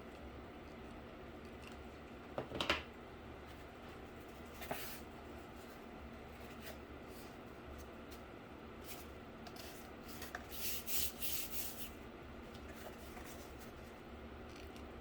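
Cardboard being handled and worked: quiet rubbing and rustling, a sharp knock a little over two seconds in and another near five seconds, then a quick run of short scraping strokes about ten to twelve seconds in.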